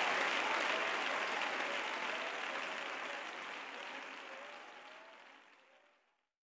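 Audience applauding after the song, fading steadily until it ends in silence about six seconds in.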